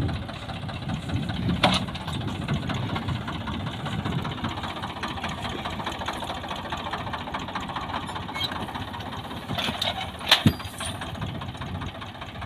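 Diesel tractor engine running steadily as it pulls a tined cultivator across a field. Sharp knocks break in twice: a small one about two seconds in and a louder double knock about ten seconds in.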